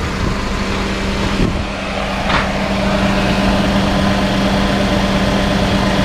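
Mazda AZ-Wagon (Suzuki Wagon R) kei car idling with the air conditioning running, a steady engine hum with a constant low tone. A short swish comes about two seconds in.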